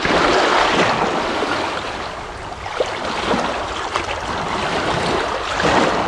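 Small waves washing in and splashing over the stones of a rocky shoreline at the water's edge.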